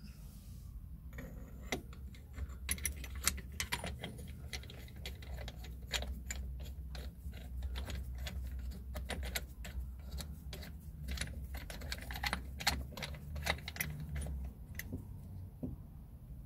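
Irregular light metallic clinks and rattles as the steel parts of a brake caliper piston rewind tool (threaded rod, adapter plate and thrust disc) are fitted by hand against a front brake caliper.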